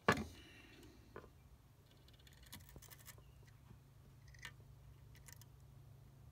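A sharp knock just at the start, then faint small clicks and scratches as a soldering iron presses copper desoldering braid onto a circuit-board solder joint, over a faint steady low hum.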